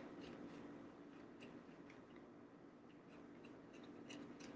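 Faint scratching and dabbing of a paintbrush on a paper plate, in short scattered strokes over a quiet room hum.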